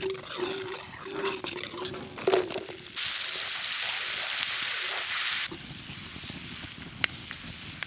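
Diced onion frying in butter in a frying pan, sizzling. The sizzle is loud and hissing from about three seconds in, then drops off sharply to a quieter frying hiss.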